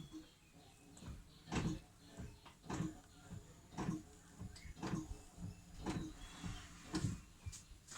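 Brake pedal being pumped to push a seized caliper piston out with hydraulic pressure: a dull knock roughly once a second, about six strokes in a row.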